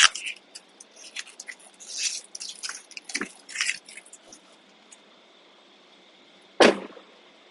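Plastic backing film crinkling and crackling as it is peeled off the adhesive, over the first four seconds. Then a single heavy thump comes about two-thirds of the way in.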